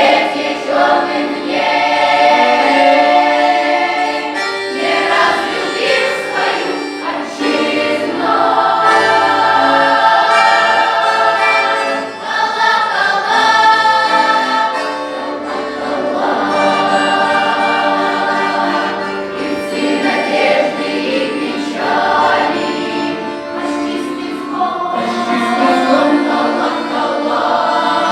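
Children's and youth folk-song choir singing, with long held chords that change every second or two.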